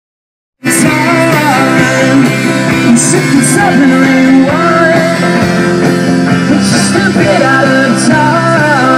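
A live band playing: a man singing over electric guitar and drums. It starts abruptly after about half a second of silence at the start.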